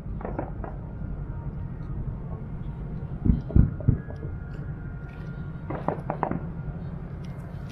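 Distant fireworks shells bursting over a steady low background rumble. There are a few muffled booms just after the start, three louder booms about three and a half seconds in, and a quick cluster of bangs around six seconds.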